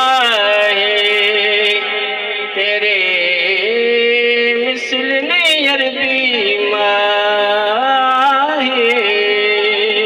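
A man's voice singing a Punjabi Sufi kalam: a long, ornamented passage without clear words, held over several notes, the pitch sliding and wavering between them in a few long phrases.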